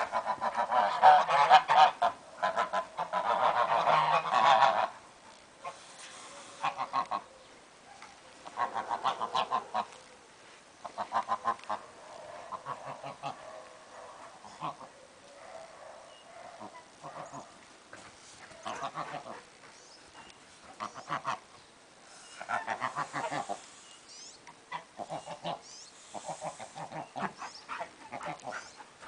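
White domestic geese honking, a loud, dense chorus over the first five seconds, then shorter bouts of repeated honks every couple of seconds.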